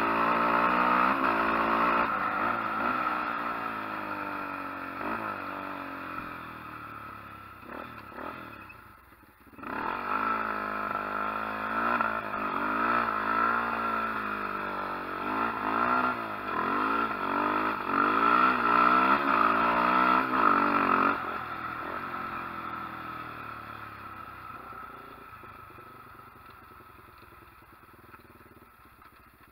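Small off-road vehicle engine revving up and down again and again as the throttle is worked while riding. It dies down almost to nothing briefly about nine seconds in, picks up again, then fades steadily over the last eight seconds.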